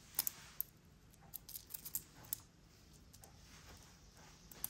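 Light clicks and clinks of a two-tone steel-and-gold Rolex Oyster bracelet as the wrist wearing it is turned: several in the first two and a half seconds, then one more near the end.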